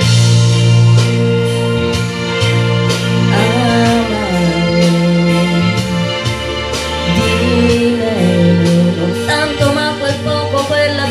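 Backing music for an Italian pop ballad, with a steady beat, and a woman singing over it into a handheld microphone.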